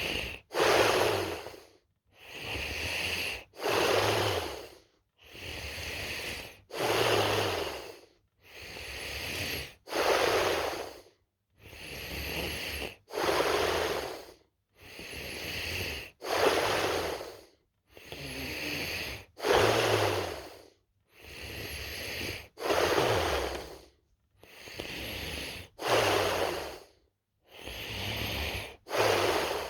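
A sleeping person snoring in a slow, regular rhythm. Each breath cycle is a softer breath straight followed by a louder, rougher one, repeating about every three seconds with a short silent pause between cycles.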